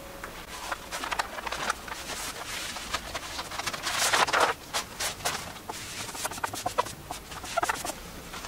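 Stiff paper backing crinkling and rustling as it is peeled away from an adhesive-backed poster map and handled, in irregular bursts that are loudest about four seconds in.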